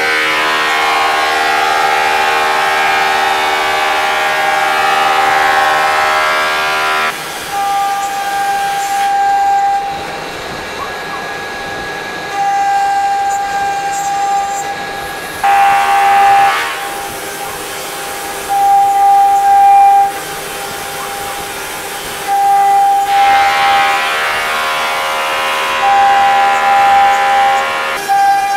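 CNC router spindle whining steadily at a high, single pitch while its bit carves a relief into a wooden panel. The sound swells louder and richer every few seconds and eases back between spells.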